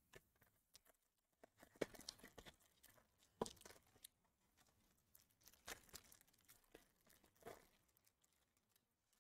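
Faint crinkling and tearing of a foil trading-card pack being opened by hand, in scattered short crackles with a few sharper rips.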